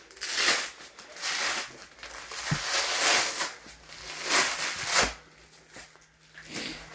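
Hands being rubbed with gymnastics chalk, a run of dry, hissy rubs about a second apart with a sharper slap about five seconds in.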